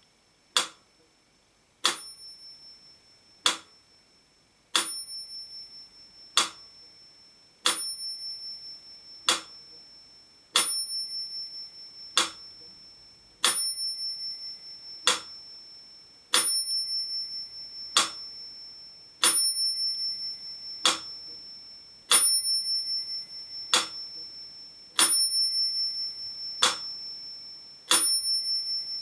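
Mechanical pendulum metronome ticking at 40 beats per minute, one sharp tick about every one and a half seconds. Its bell rings on every second beat, and each bright ring lingers and fades, wavering, between the beats.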